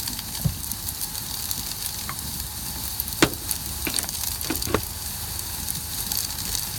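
Cellulose fibre insulation being blown through a flexible hose: a steady crackling hiss, with a few sharp knocks about halfway through.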